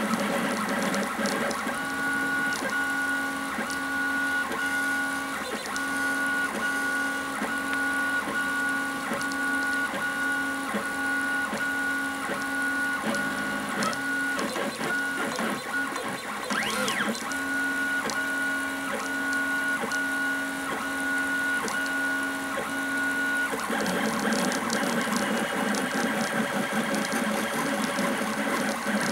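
FDM 3D printer printing PLA parts: its stepper motors whine in short repeated strokes about twice a second as the extruder head traces the part walls, over the steady hiss of a cooling fan blowing on the print. Near the end the movement sound turns busier and rougher.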